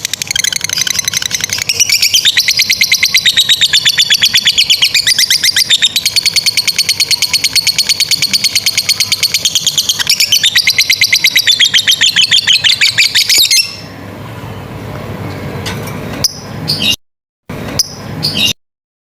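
Lovebird giving a long, rapid chattering trill (the 'ngekek panjang' song), many sharp high notes a second run together without a break. It stops abruptly about three-quarters of the way through, leaving only faint low noise that drops out twice.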